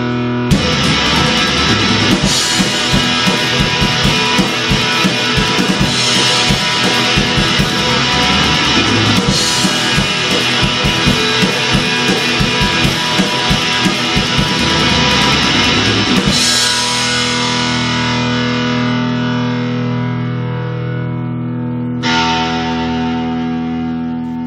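Guitar rock music with a steady driving beat and electric guitar. About two-thirds of the way through the beat drops out and a held chord rings on, then a second chord is struck near the end and begins to fade.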